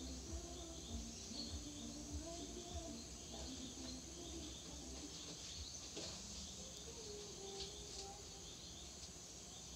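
Faint high whistling calls from a baby sloth, over a steady chorus of insects.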